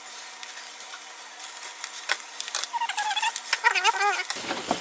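Greens sizzling and crackling in butter and olive oil in a stainless pot. Twice in the second half a loud, wavering high-pitched whine rises over the crackle.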